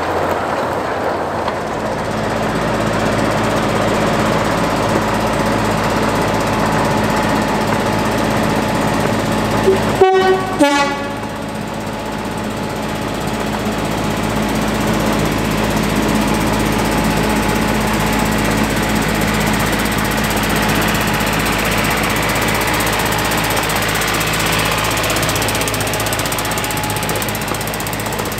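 Miniature-railway diesel locomotives running steadily as they pass, with two short horn toots about ten seconds in.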